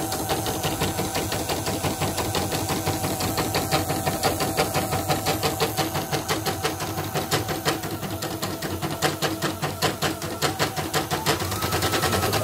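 CNY M31 portable computerised embroidery machine running on a test after its drive motor was replaced for unstable speed. The needle mechanism makes a rapid, even clatter over a steady motor hum.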